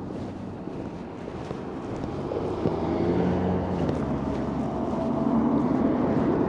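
Road traffic outdoors: a steady low engine hum from passing vehicles, with wind buffeting the microphone.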